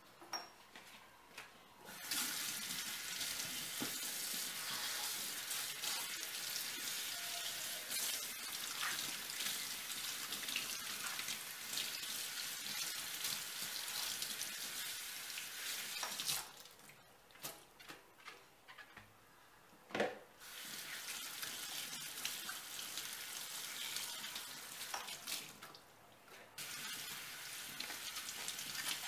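Kitchen tap running into a stainless steel sink, the stream splashing over leeks as they are rinsed by hand. The water stops twice, about halfway through and again near the end, with a few light knocks and one sharp click in the first pause.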